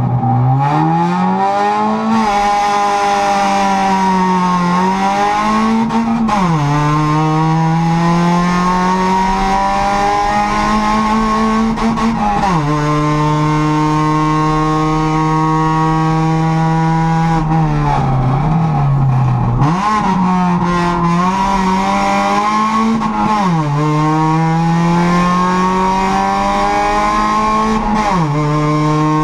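Honda Civic race car's four-cylinder engine heard from inside the cabin under hard acceleration, its pitch climbing and then dropping sharply at each upshift, about five times. Midway the revs dip and rise unevenly, as when easing off for a bend.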